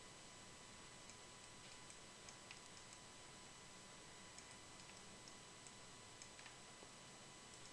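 Near silence: faint recording hiss and hum, with about ten faint, scattered computer-mouse clicks as the 3D view is rotated and zoomed.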